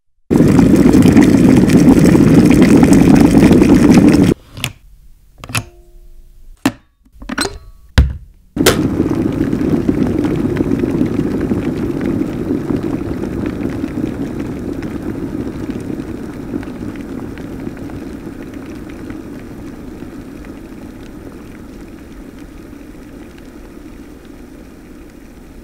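Kettle coming to the boil with a loud, steady bubbling rumble. About four seconds in it gives way to a few sharp clicks with quiet between them. The rumble then comes back and slowly dies away, as the boil subsides.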